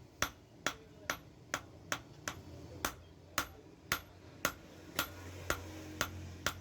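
Hand hammer striking metal on an anvil in a steady rhythm, about two ringing blows a second.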